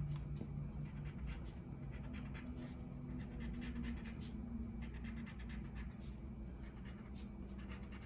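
Green wax crayon scratching over paper in a quick run of short zigzag strokes.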